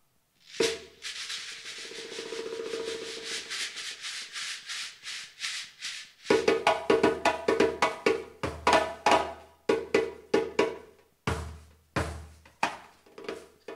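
Drumming: one sharp hit, then a fast drum roll lasting about five seconds. It breaks into a beat of loud, separate strokes, with a short pause near the end.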